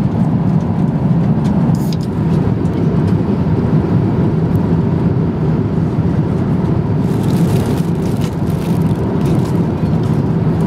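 Steady low drone of an Airbus A350-900's cabin in flight: engine and airflow noise. Faint crinkling of a plastic bag joins in during the second half.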